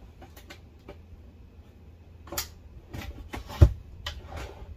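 A plywood drawer is pushed onto its metal drawer slides and shut, with a run of clicks and rattles from the slides. A heavy thump about three and a half seconds in comes as the drawer hits home and the slides lock in.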